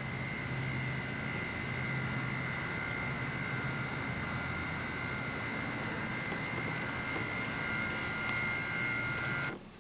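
Steady rushing noise and low hum of a car's cabin while driving slowly, with a constant high whine over it; it stops abruptly near the end.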